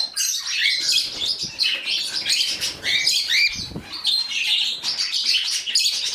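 A flock of pet budgies chattering and chirping nonstop, many birds overlapping. There is a brief flutter of wings a little past halfway.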